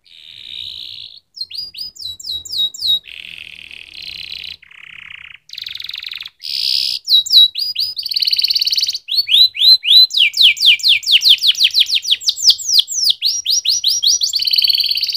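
Domestic canary singing, a chain of changing phrases: buzzy trills alternating with fast runs of repeated sweeping notes, the longest run about halfway through at roughly seven notes a second.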